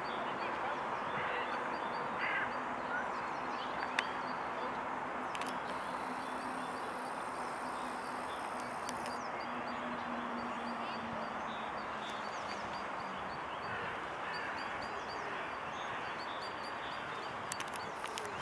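Steady outdoor background noise with birds calling throughout in short repeated high notes, and a low engine hum for several seconds in the middle.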